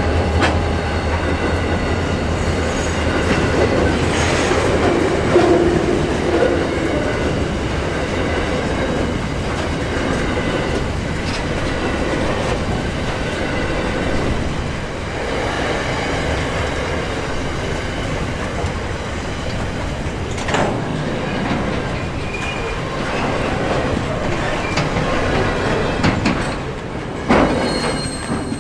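Diesel freight train passing close by: the locomotive's engine hum fades in the first few seconds, then a long string of container and tank wagons rolls past with steady wheel noise on the rails and a few sharp knocks.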